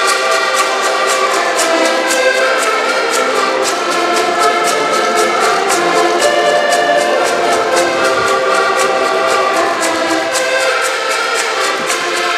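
An ensemble of button accordions playing a folk tune together in sustained chords and melody, with a quick, steady tick-like beat running underneath.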